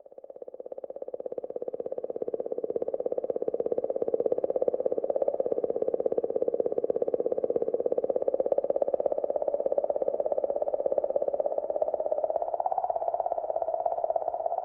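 Space-probe recording played back as a planet's 'sound': a steady drone with a fine, rapid pulsing, starting out of silence and swelling over the first few seconds, its pitch edging slightly higher near the end.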